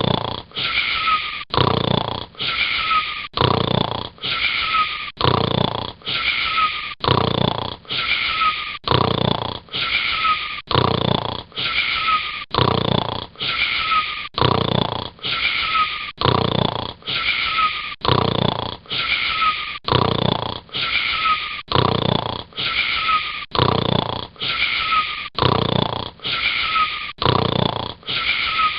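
Steady snoring: a wheezy rasp on every breath in and out, with a short falling whistle, repeating evenly about every two seconds.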